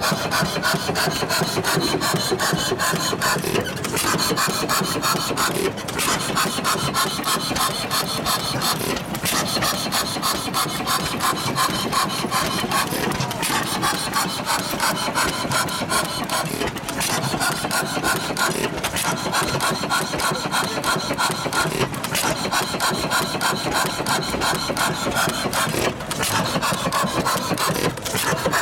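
Antique 10 hp Spence stationary engine running: a steady, fast, rasping clatter that repeats many times a second.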